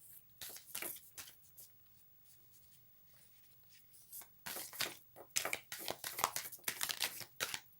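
A deck of oracle cards being shuffled and handled by hand: a short burst of papery flicking and rustling near the start, then a longer run of quick card flicks from about halfway through.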